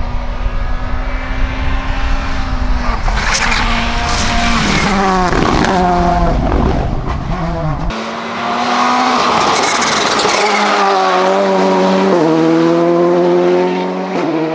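Volkswagen Polo GTI R5 rally car's 1.6-litre turbocharged four-cylinder engine driven hard, its pitch climbing and dropping in steps through gear changes, with bursts of rushing noise. The sound changes abruptly about eight seconds in, then the engine pulls up steadily again near the end.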